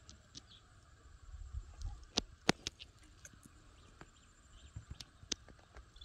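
Scattered sharp clicks and taps from hands handling a baited fish hook and a fishing rod, the loudest about two and a half seconds in, over low rumbling handling noise.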